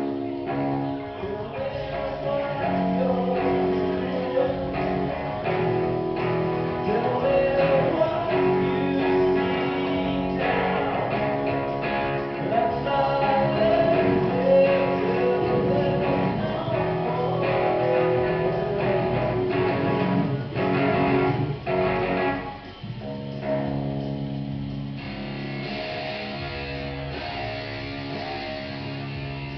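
Live band playing guitar-led music through a PA during a sound check, with strummed guitar. About two-thirds through, the playing drops away briefly, then carries on quieter and steadier.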